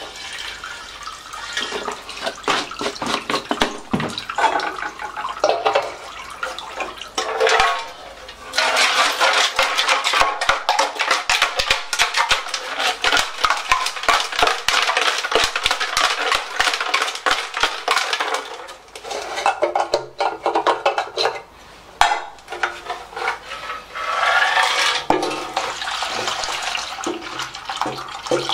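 Liquid poured from a plastic jerry can into a small rusty steel fuel tank, then swilled and sloshed around inside the detached tank to flush it, with much rattling against the metal. The busiest sloshing runs from about 8 seconds in for about ten seconds and picks up again near the end.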